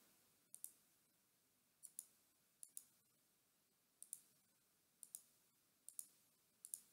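Computer mouse button clicking about seven times, roughly once a second, each click a quick double tick of press and release, faint against near silence.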